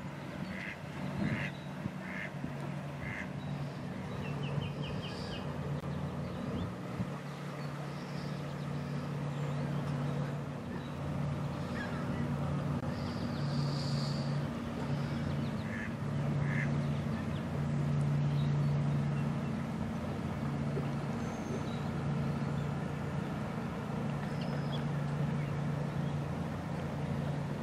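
A motorboat engine running, heard across the water as a low hum that swells and fades, with a few short bird calls about a second in and again around the middle.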